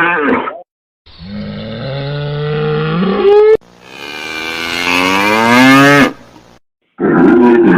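Cattle mooing: two long moos of a few seconds each, both rising in pitch, then another moo starting near the end. The calls start and stop abruptly, with short silent gaps between them.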